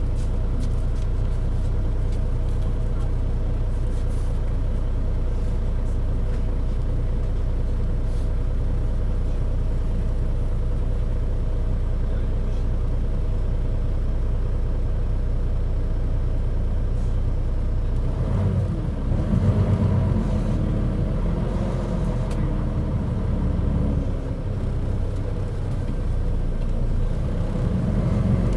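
Mitsubishi Fuso KC-MP617K city bus engine heard from inside the bus, running steadily at first, then louder and rougher with wavering pitch from about two-thirds of the way through. The engine makes an abnormal noise far from its normal sound, which the uploader takes as the sign of some fault or trouble.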